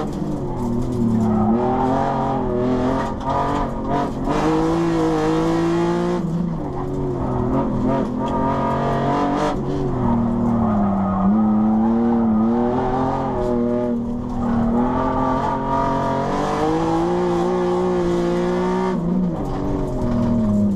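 Ford SVT Contour's cammed 2.5-litre V6, heard from inside the cabin, revving up and down again and again as it is driven hard through an autocross course, with tyres squealing at times.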